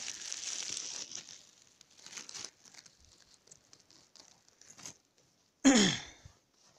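Grass and the cow's tether rope rustling against the phone's microphone, loudest in the first second, then softer scattered rustles. Near the end comes one sudden loud short sound that slides sharply down in pitch.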